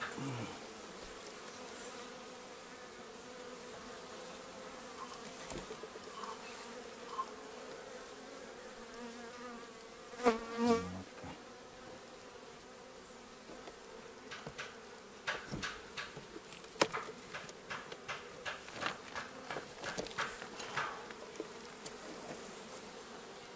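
Honeybees buzzing steadily in an opened hive, with a louder, wavering buzz about ten seconds in. A run of light clicks and knocks follows in the second half.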